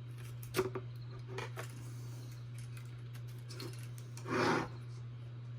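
Small plastic robot-kit parts and cable connectors being handled and pushed into place: a sharp click about half a second in, a few light ticks, and a short scraping rub near the end, over a steady low hum.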